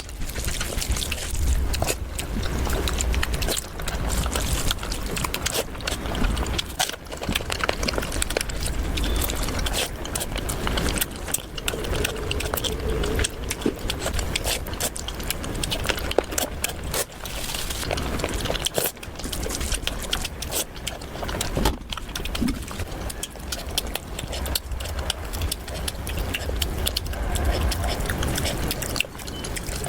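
Close-miked eating: chewing and crunching of food with dense, irregular wet clicks and crackles, and some slurping.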